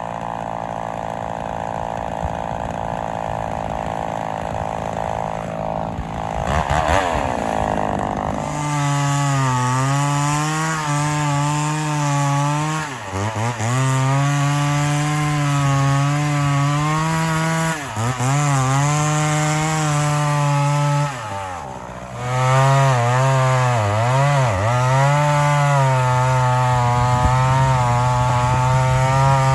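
Vintage Homelite XL-400 two-stroke chainsaw revving up a few seconds in, then held at high speed while cutting wood, its pitch dipping briefly several times as the chain meets load.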